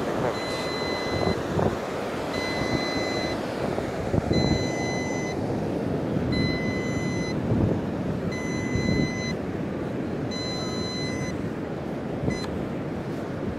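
Electronic warning beeps from a drone and its remote controller: a high beep about a second long, repeated every two seconds six times, then one short blip near the end. Wind buffeting the microphone and surf run underneath throughout.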